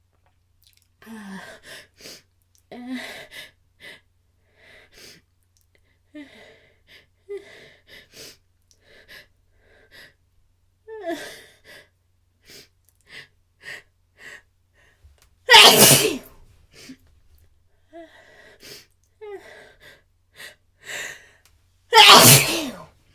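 A person's sneeze build-up: many short, catching gasps and breaths, then a loud sneeze about sixteen seconds in and a second loud sneeze near the end.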